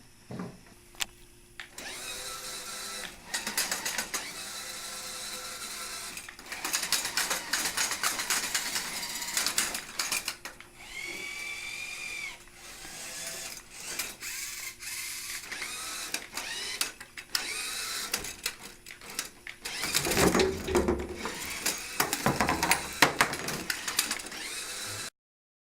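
FTC competition robot being put through its paces: electric motors whining and gears running, with many clicks and knocks, and a whine that rises and falls about eleven seconds in. It starts after a quiet couple of seconds and cuts off abruptly near the end.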